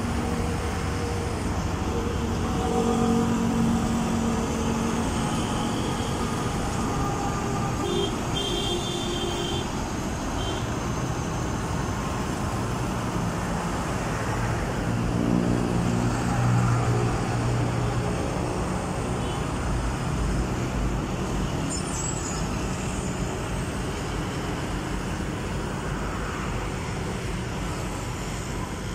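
Diesel engine of a Sany SY215C crawler excavator running steadily as the machine tracks and turns on dirt, mixed with road traffic.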